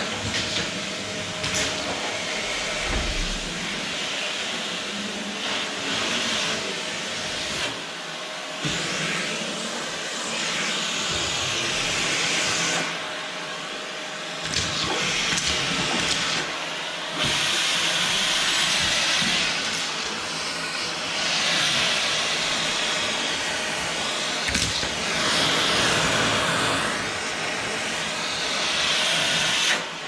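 Canister vacuum cleaner running, a steady motor hum under a rush of air that rises and falls every few seconds as the nozzle is moved over a wooden floor.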